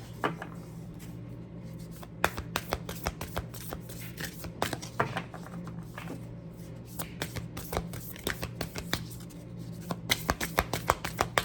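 A deck of tarot and oracle cards being shuffled by hand: irregular quick flicks and riffles of card stock, coming thicker near the end.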